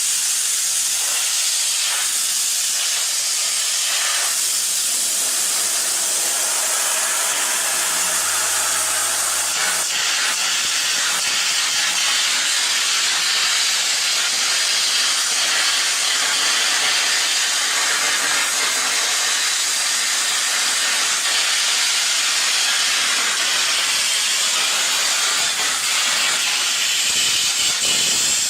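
Air carbon arc gouging: a 1/4 inch carbon rod arcing on steel while compressed air from the torch blows the molten puddle away, a loud steady hiss as weld metal is gouged out.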